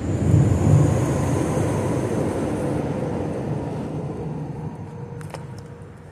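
A vehicle crossing the concrete road bridge: a low rumble that swells within the first second and then slowly dies away, with a faint high tyre whine.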